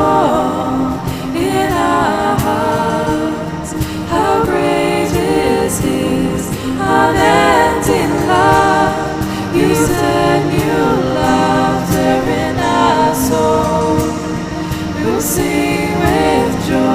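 Music: a Christian rock worship song with sung vocal phrases over the band, the voices layered like a small choir.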